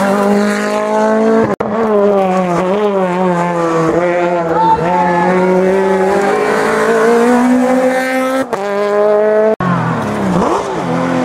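Rally car engines revving hard through a bend, the engine note rising and falling with throttle and gear changes. The sound breaks off abruptly three times where the recording cuts from one car to the next.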